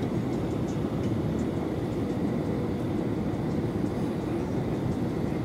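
Steady cabin noise of an Airbus A321 on final approach with flaps extended, heard from a seat over the wing: an even rumble of engine and rushing air with a faint steady hum.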